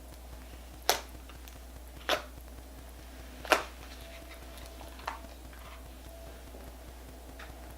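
Thick bead-filled slime worked by hand, giving sharp clicking pops: four in all, roughly one every second or so, the last one fainter.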